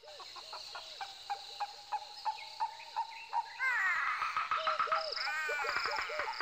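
Overlapping animal calls: a short call repeating a few times a second, a quick run of sharp clicks, and from about three and a half seconds in, louder calls that slide upward in pitch.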